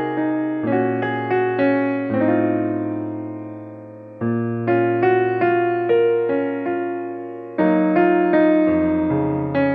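Background piano music: a slow melody of struck, decaying notes over held bass chords.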